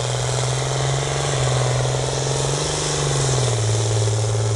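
John Deere 4450 tractor's turbocharged six-cylinder diesel running hard under load while pulling a sled. Its steady note rises slightly about a third of the way in, then drops back and holds.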